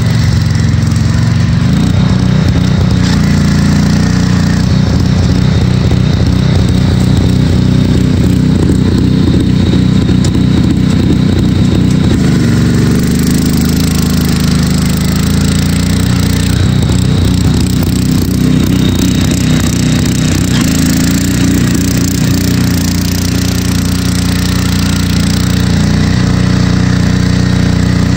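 Engine of a six-wheel Craftsman garden tractor running steadily under load as it climbs a hill, its note shifting a few times.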